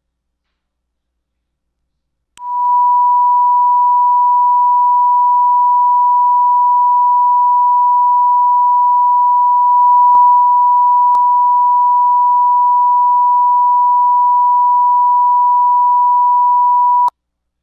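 A loud, steady electronic tone at about 1 kHz, like a test-tone beep. It starts abruptly about two seconds in and cuts off just before the end, with two faint clicks partway through.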